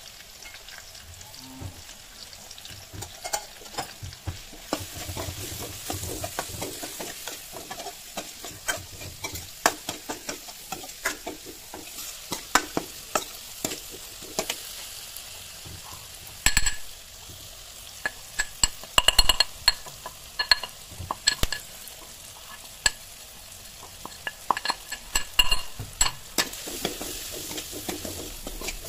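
Chopped onion and tomato with ground spices sizzling in oil in a steel wok (kadhai) while a steel ladle stirs and scrapes through them. Frequent sharp clinks of the ladle against the pan, some briefly ringing, come in quick runs around the middle and again near the end.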